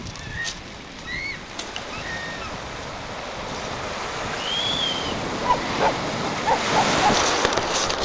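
Ocean surf washing onto a beach, its rush swelling louder toward the end, with a few short high calls over it.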